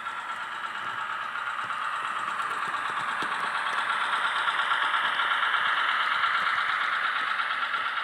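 ZIMO sound decoder in a Roco H0-scale NS series 200/300 diesel shunting locomotive model, playing its diesel engine sound through the model's small speaker as it runs. The sound is thin and tinny with no bass. It grows louder over the first five seconds or so, then eases slightly.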